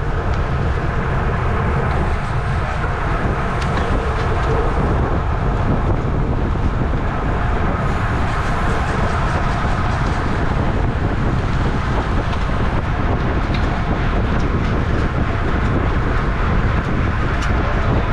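Steady wind noise buffeting the microphone of a racing bicycle moving at about 25 mph, with a few faint ticks.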